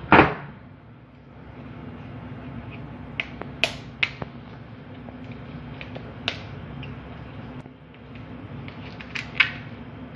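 Kitchen containers and a metal spoon being handled while spooning dry ingredients into a plastic bowl: one loud knock at the start, then scattered sharp clicks and taps, over a steady low hum.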